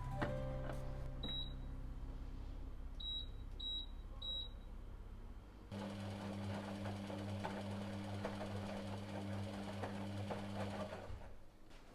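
An electric household appliance beeps four short times as its buttons are pressed, then a motor hum starts suddenly, runs for about five seconds and cuts off.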